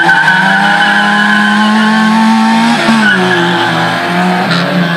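Autobianchi A112 Elegant's small four-cylinder engine revving hard as the car accelerates away from the start, its pitch climbing steadily. About three seconds in the pitch drops at an upshift, then climbs again.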